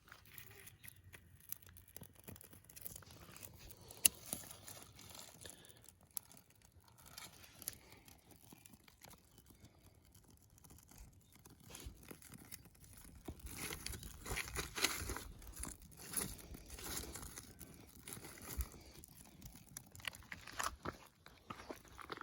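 Dry twigs and bark being handled, rustled and snapped by hand while tinder is gathered for a campfire: scattered sharp snaps, with a busier stretch of crackling and rustling past the middle.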